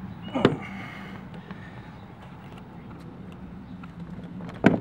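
Sharp metallic clicks and knocks of a hand tool levering on the metal pivot and spring clip of a Lexus IS250 side-mirror mount. There is one knock about half a second in that rings briefly, and two quick strikes near the end, over a low steady hum.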